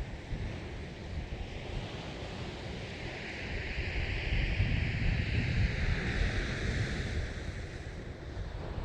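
Sea waves washing, with one wash swelling about three seconds in and easing off near the end, over a low rumble of wind on the microphone.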